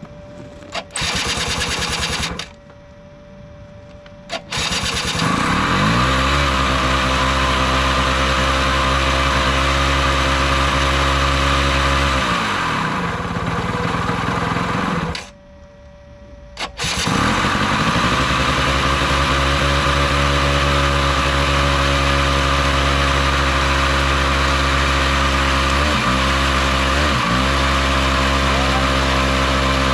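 Small 90cc two-stroke ATV engine being started with its electric starter: short cranking spells, then it catches and runs. About ten seconds later it stops, is cranked again and catches, then idles steadily, with a couple of brief dips in engine speed near the end. These are the first test-fire runs after a new stator, CDI and carburettor.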